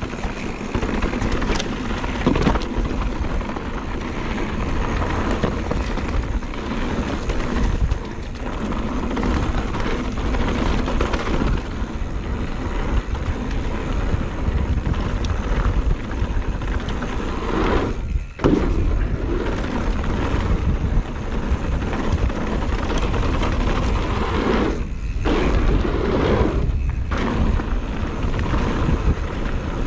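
Wind rumbling on the microphone and tyres rolling over a dirt trail during a mountain bike descent. The noise is steady, with short dips about 18 seconds in and twice near the end.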